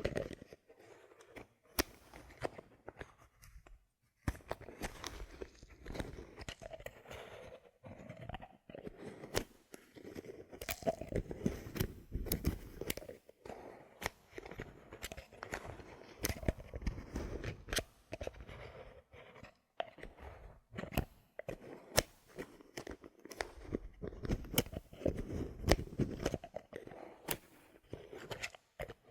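Bottle caps handled close to the microphone: irregular sharp clicks and taps over a scratchy, crinkly rustle, with short pauses between bouts.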